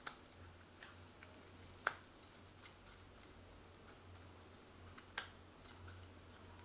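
Soft clicks and taps of oracle cards being slid from a fanned spread and laid down on a cloth-covered table, the sharpest about two seconds in and another about five seconds in, over a faint steady low hum.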